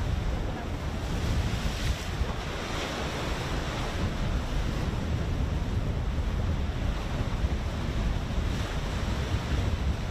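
Wind buffeting the microphone over the open sea: a steady rushing noise with a heavy low rumble.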